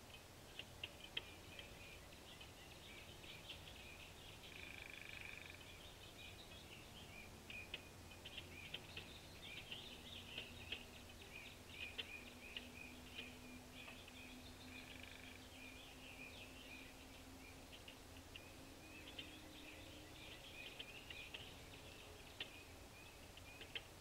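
Faint birdsong from small birds: many quick, high chirps and twitters, with two short held calls about five and fifteen seconds in.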